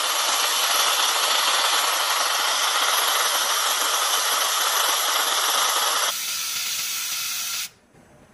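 Automatic fiber laser welder welding a steel tube to a plate, its weld and gas nozzle giving a steady loud hiss. The hiss turns thinner about six seconds in and cuts off sharply near the end.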